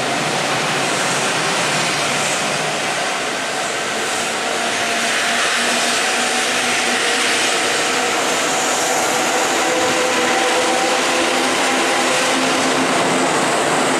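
Kintetsu local electric train rolling steadily past the platform on its way into the turnback siding: a continuous rumble of wheels on rail with faint humming tones.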